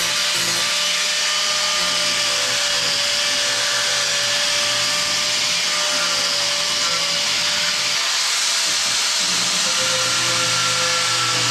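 Hand-held power tool running steadily under load while cutting burnt fiberglass: a continuous high whine over a hissy rush, its pitch wavering slightly as it bites.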